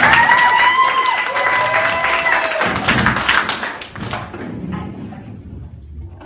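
Rapid clapping with a high-pitched held cry over it for the first two seconds or so; the clapping dies away about four seconds in.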